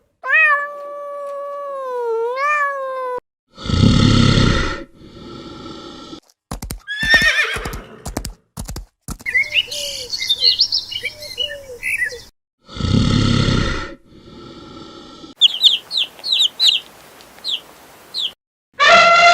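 Different animal calls, each cut short and one after another: a long wavering pitched call, then two loud harsh calls, a quick run of clicks, and two stretches of short, repeated bird chirps.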